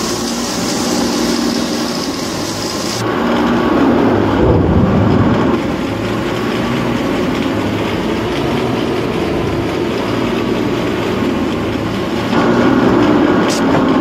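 Large truck-mounted wood chipper running and chipping logs, heard together with heavy diesel engines: a loud, steady mechanical drone with a low engine hum. The sound shifts abruptly about three seconds in and again near the end.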